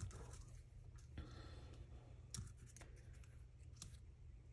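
Faint rustling and light taps of paper die-cut letters being picked up and set down on cardstock, a few soft clicks over a low steady room hum.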